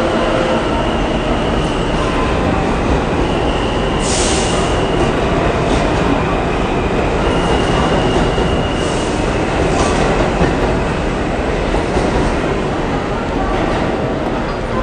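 New York City subway train running on the rails: a loud, steady rumble with high-pitched wheel squeals coming and going, the clearest about four seconds in and again around eight.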